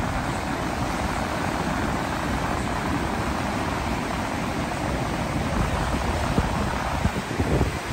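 Strong wind buffeting the microphone over choppy surf, small waves breaking and washing up a sandy beach: a steady rushing noise with a heavy, gusty rumble underneath.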